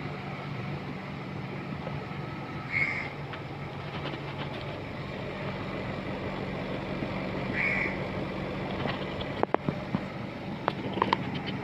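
Mitsubishi Electric split air conditioner running with a steady hum. Two short high calls sound about five seconds apart, and a few sharp clicks come near the end.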